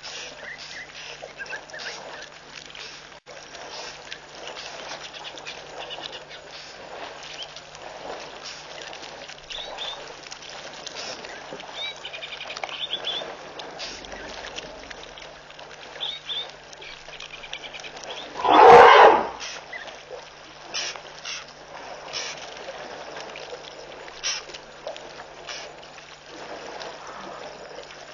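African elephant herd drinking at a waterhole: water sloshing and splashing with many small knocks, over a faint steady hum. A single loud burst, under a second long, comes about nineteen seconds in.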